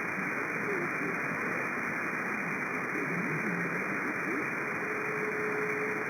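CB radio receiver on single sideband (channel 37) hissing with steady static, with faint, garbled, pitch-warped voices of weak stations under the noise. A steady whistle tone comes in near the end.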